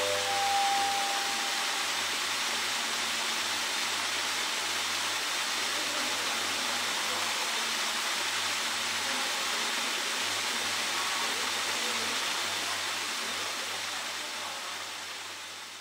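A strong jet of water spraying from a rusty pipe outlet, a steady hissing rush that fades out over the last few seconds. A few brief notes step upward at the very start.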